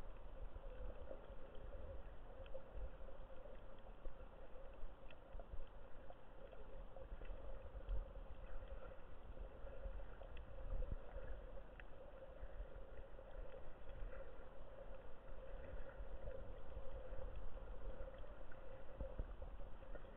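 Underwater sound picked up by a camera below the surface: a steady, muffled hum with a low rumble underneath and scattered faint clicks.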